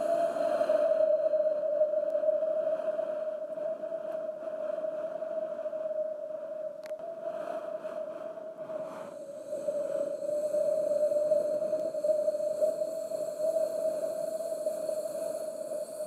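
Wind howling: a steady whistling tone over a hiss, swelling and easing in gusts.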